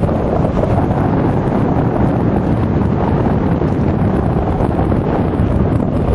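Wind buffeting the microphone of a camera on a moving electric bike: a steady, loud, low rush with no motor whine standing out above it.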